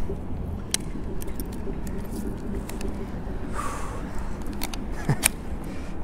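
Scattered small clicks and rattles of a plastic fish gripper and digital hanging scale being clipped together and handled, over a steady low rumble of road traffic.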